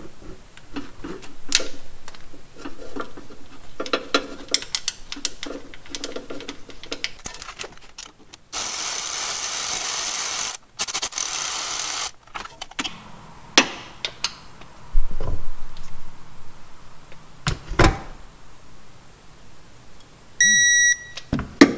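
Cordless ratchet running the timing-belt idler pulley bolt in, in two steady runs of about two seconds each, among light clicks and knocks of tools on the engine. Near the end a digital torque wrench gives one short beep as the bolt reaches its set torque of 33 ft-lbs.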